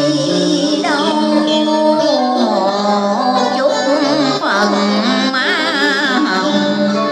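Traditional Vietnamese cải lương music: plucked string instruments playing bent, wavering melody notes over steadily held low tones.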